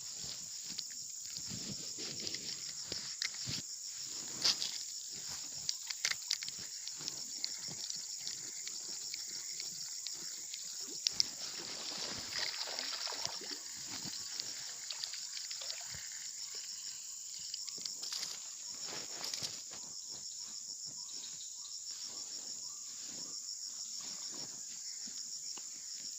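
Steady high-pitched chorus of insects, crickets by the sound of it, with scattered clicks and rustles of handling close by.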